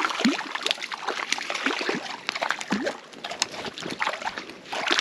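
Water splashing and sloshing in a shallow creek, with quick irregular plops and drips, as a small hooked trout is brought in at the surface.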